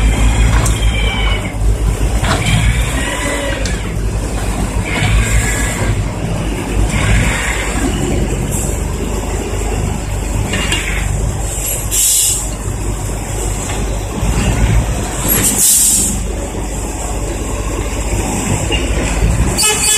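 Diesel engine of a ten-wheel dump truck running steadily while its tipper bed is held raised to dump soil, with a few short hissing bursts.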